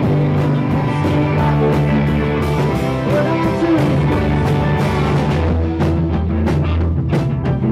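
Live rock band playing: acoustic guitar, electric guitar and synthesizer keyboard, with drum hits coming through more sharply near the end.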